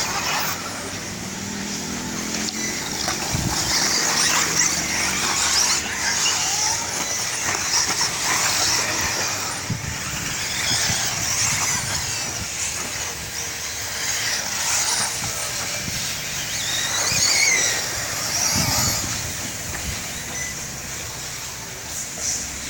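Electric 4WD radio-controlled off-road buggies racing: their motors and drivetrains whine, rising and falling in pitch, over a hiss of tyre and track noise.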